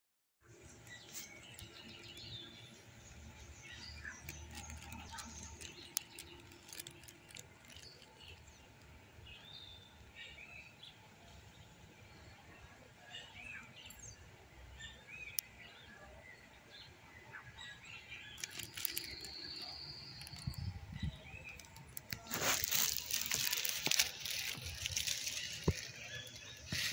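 Outdoor ambience with small birds chirping now and then, one holding a high note for about a second partway through. Near the end comes a louder burst of noise lasting a few seconds.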